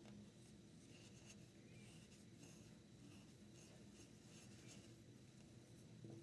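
Soft-bristled brush swept across a mesh window screen: faint, repeated scratchy swishes of the bristles on the mesh, about two strokes a second.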